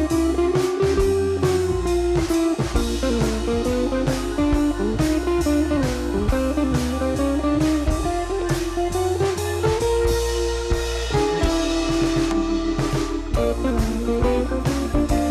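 Background music: a guitar-led, bluesy instrumental with a sliding melody, bass and a steady drum beat.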